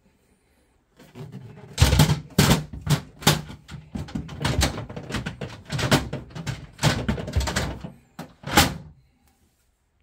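Refrigerator drawer being slid and fitted into its rails: a run of clunks, knocks and rattles that starts about a second in and stops about a second before the end.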